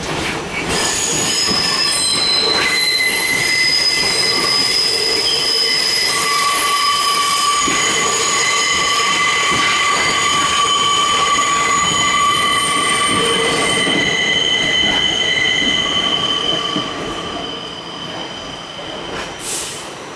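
Steel wheels of an R46 subway car squealing against the rails as the train runs, a loud sustained squeal of several high tones over the rumble of the car. It fades out after about sixteen seconds.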